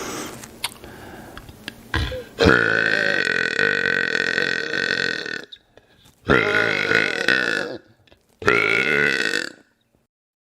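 A man burping loudly: three long, drawn-out burps separated by short pauses, the first lasting about three seconds, after a quieter lead-in with a couple of clicks.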